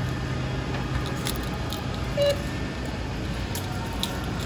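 Store ambience: a steady low hum with scattered light clicks and handling noise, and one brief short tone about two seconds in.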